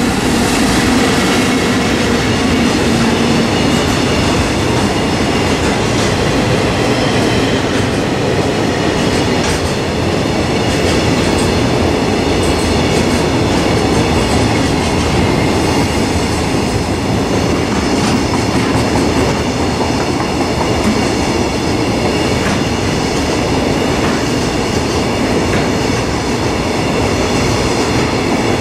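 A long freight train of container wagons rolling past at speed: a loud, steady rumble with the wheels clattering over the rails.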